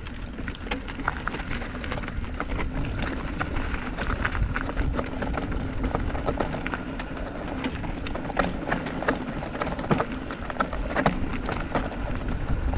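Mountain bike rolling down a rock slab: knobby tyres crunching over grit and stone, with frequent sharp clicks and rattles from the bike over a steady hum and low wind rumble on the microphone.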